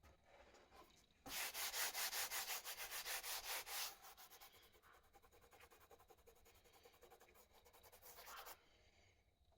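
Hand sanding of body putty on a Honda Super Cub part with abrasive paper: rapid back-and-forth strokes, loud for a few seconds, then lighter strokes that stop near the end.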